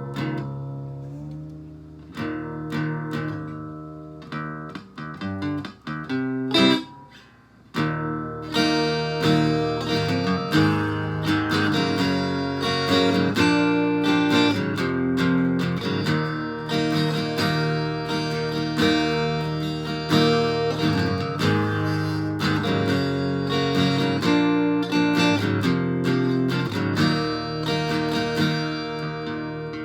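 80s Korean Lotus L-80 acoustic guitar with a Bartolini 3AV soundhole pickup, amplified through a Boss DS-1 distortion pedal and an amp. For the first eight seconds or so it plays separate chords and notes with short gaps, then it goes into steady, continuous strummed chords.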